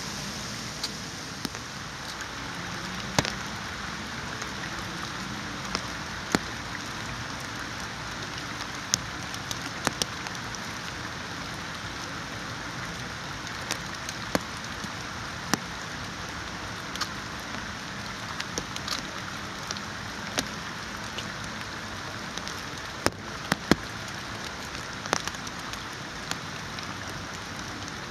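Steady rain falling, with scattered sharp taps of single drops landing close by.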